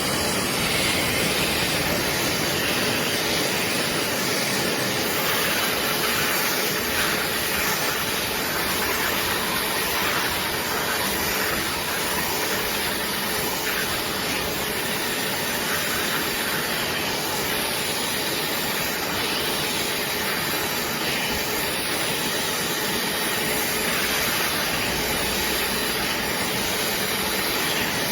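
BISSELL Little Green portable upholstery cleaner running steadily, its suction motor giving an even, loud whooshing hiss.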